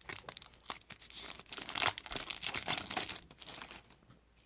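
Wrapper of a trading card pack being torn open and crinkled, a dense run of crackling rustles that dies away near the end.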